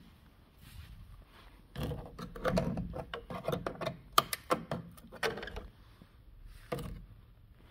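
Screwdriver tip poking and scraping at the rusted-through sill of a 1987 Opel Kadett Caravan: a run of scratchy clicks and crunches from the rotten metal starting about two seconds in, with the sharpest click about four seconds in and one more near the end.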